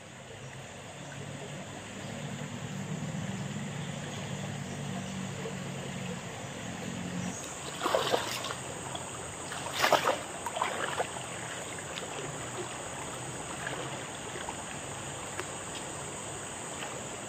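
River water splashing sharply twice, about eight and ten seconds in, with smaller splashes and drips after, as a fishing net is hauled up out of the river, over a steady rush of running water. A low motor-like hum runs through the first seven seconds.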